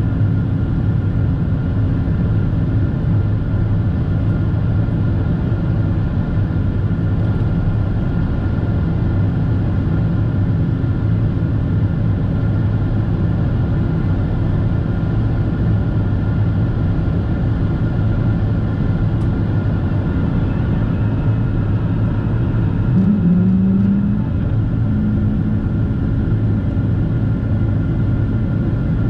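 Steady cabin roar of a Boeing 767-400ER climbing after takeoff, heard from a window seat by the wing: its GE CF6-80C2 turbofans at climb power plus rushing airflow, with a low hum underneath. About two-thirds of the way through, a short extra low hum joins briefly.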